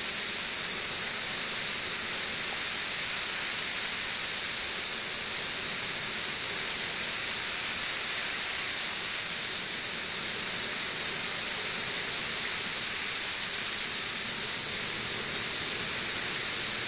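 Massed chorus of 17-year periodical cicadas (Brood XIV), a steady high-pitched drone that sounds like static.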